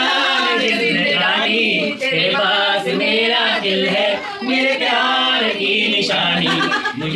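A group of voices singing a Hindi film song together, unaccompanied, as in a home antakshari game.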